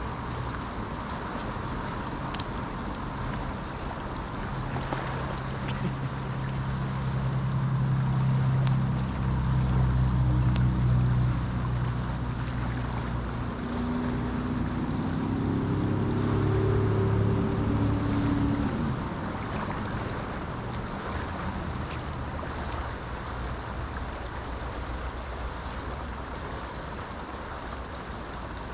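Steady rush of river water with wind on the microphone. Under it, a low drone of several steady pitches swells through the first half and stops a little past the middle.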